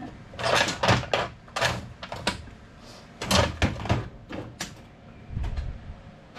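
Metal hand tools knocking and rattling as they are moved about on a workbench, a dozen or so short, sharp clatters at uneven intervals.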